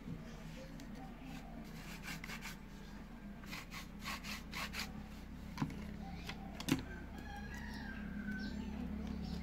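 Unwaxed wooden sliding barrel of a homemade slingshot pistol rubbing and clicking as it is worked back and forth, wood scraping on wood. A little past the middle come two sharp wooden knocks.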